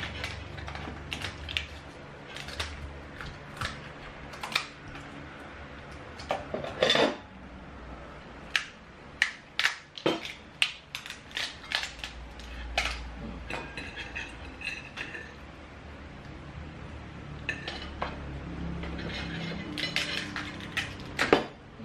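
Clinks and knocks of plates and eating utensils at a meal, with a quick run of sharp clicks about halfway through.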